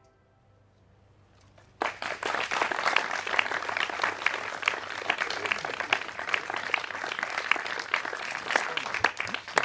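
An audience applauding after a short hush: many hands clapping in a dense, steady patter that starts about two seconds in.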